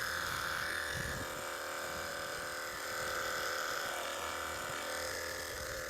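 Cordless battery-powered pressure washer running steadily, its small motor giving a continuous whine over the hiss of the water jet.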